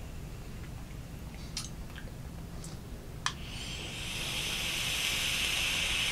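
A few small clicks, then, about three and a half seconds in, a tube-style e-cigarette starts to hiss steadily as it is drawn on: air pulled through the heated atomizer.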